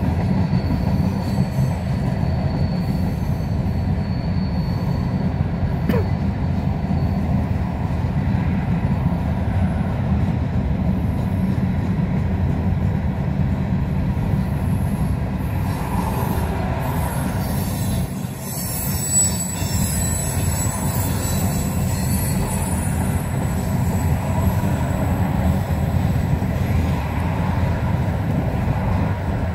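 Freight train's boxcars rolling past, a steady low rumble of wheels on the rails. A thin, high wheel squeal runs through the first several seconds.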